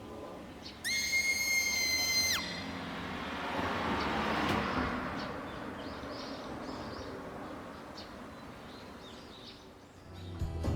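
A high, steady whistle-like tone for about a second and a half, dropping away at its end, followed by a vehicle passing by, its noise swelling and fading over a few seconds.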